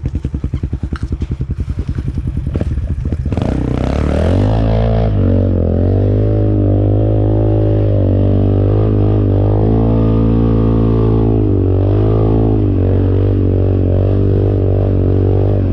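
ATV engine idling with an even, chunky pulse, then revving up about four seconds in and running on at steady high revs as the four-wheeler rides off, its pitch wavering up and down with the throttle.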